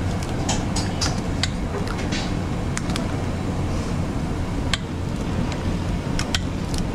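Scattered sharp clicks and clinks of cooking utensils at a street-food burger stall, over a steady low hum.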